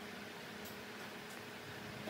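Faint steady hiss with a low, even hum and two faint ticks.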